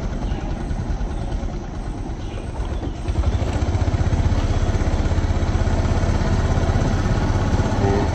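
Motorbike engine running with a steady low note, getting louder about three seconds in.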